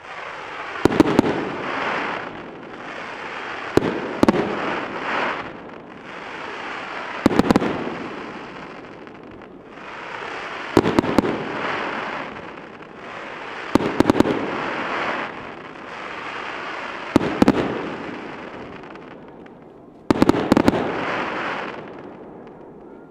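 Aerial fireworks shells bursting: sharp bangs, some in quick pairs, about every three seconds, each followed by a fading hiss that lasts a second or two.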